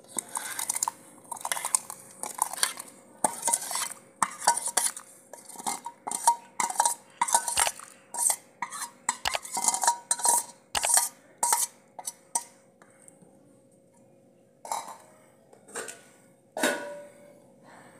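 Steel ladle clinking against a steel bowl many times in quick succession as soaked dal is scooped and tipped into a clay pot of hot water. Near the end, a few separate knocks as the ladle stirs in the clay pot.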